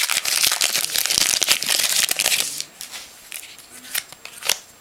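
Trading-card pack wrapper crinkling and tearing as it is opened, dense for about two and a half seconds, then a few light clicks as the cards are handled.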